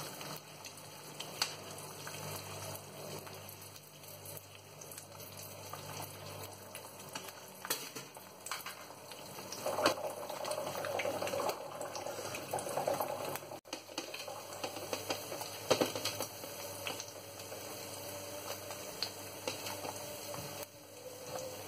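Two eggs frying in oil in a nonstick pan, sizzling steadily with scattered pops and crackles.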